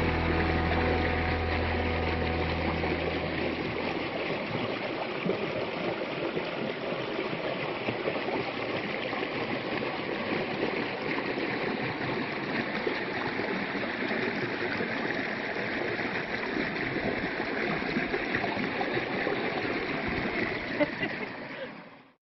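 Creek water rushing steadily, with a low hum dying away in the first few seconds; the sound cuts off abruptly near the end.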